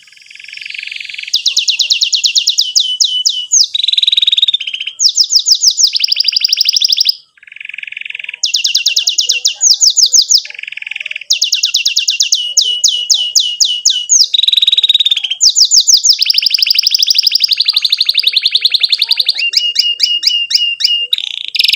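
Domestic canary singing a long song: phrases of fast repeated chirps and trills, each lasting a second or two and each at a different pitch and speed, with a brief pause about seven seconds in.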